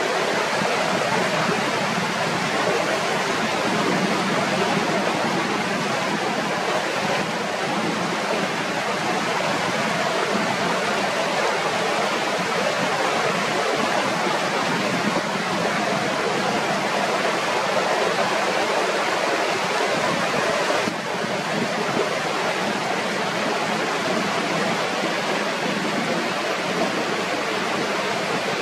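Mountain river rushing, a steady, unbroken noise of flowing water.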